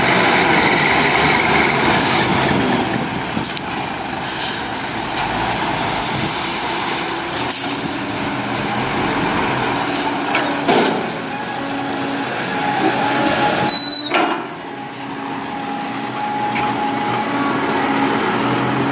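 Diesel engines of an excavator and dump trucks running steadily at a sand pile, with several short hisses of released air like truck air brakes, and a brief louder burst later on.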